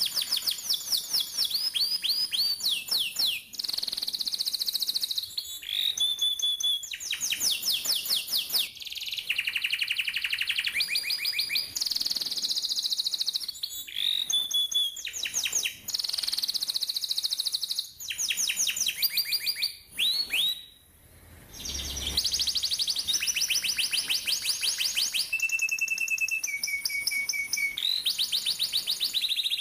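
Domestic canary singing a long, continuous song of fast trills and rolls: rapid repeated notes in phrases that change every second or two, some as quick rising sweeps, others as steady high rolls, with a brief pause about two-thirds of the way in.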